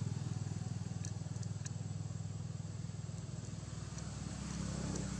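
Low, steady rumble of an engine running, with fine rapid pulsing. A faint steady high tone sits above it, and a few light clicks come about a second in.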